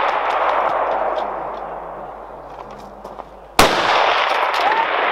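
A precision rifle fires once about three and a half seconds in: a sharp crack followed by a long rolling echo. Before it, the echo of the previous shot dies away.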